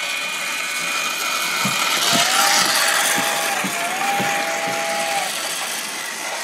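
Motorized toy train running past on its track, its motor and gears whirring steadily, with regular clicks about twice a second in the middle. Two long whistle-like tones sound partway through.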